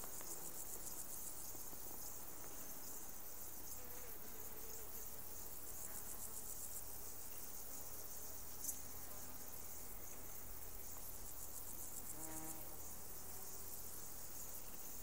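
Insects chirping in a steady, high-pitched, rapidly pulsing trill.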